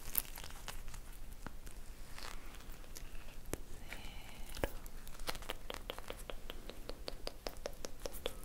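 ASMR tongue clicking right at the microphone: scattered wet clicks, then from about five seconds in a fast, even run of small clicks, about five a second. A brief high squeak comes about four seconds in.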